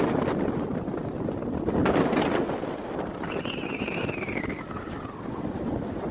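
Wind buffeting the microphone in gusts. About halfway through, a single high whistled note slides down in pitch over about a second.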